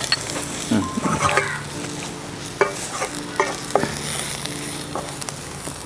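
Onion masala sizzling in oil in a pan while it is stirred with a spoon, the spoon knocking against the pan about half a dozen times, with chilli and coriander powder just mixed in.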